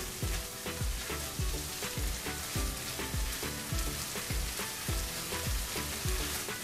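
Ground beef and onions sizzling in a nonstick frying pan over high heat as they are stirred with a spatula, the meat being cooked until its water has evaporated. Background music with a steady beat plays under it.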